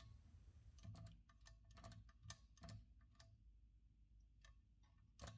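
Faint, scattered mechanical clicks from a 1920 Heroine Model A typewriter's levers being worked by hand, the loudest click near the end.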